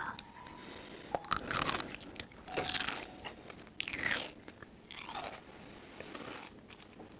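A person biting and chewing crisp, crunchy food, with a crunch about every second or so.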